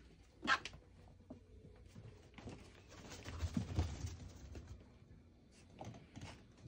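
A small dog moving about during a scent search: light paw steps and rustling. There is a short sharp scuff about half a second in and a longer stretch of shuffling with low thumps around the middle, as it clambers onto a raised fabric cot.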